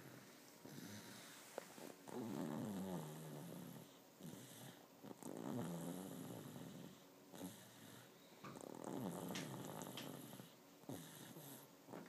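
A three-year-old boy snoring very loudly in his sleep, one snore on each breath, roughly every three seconds.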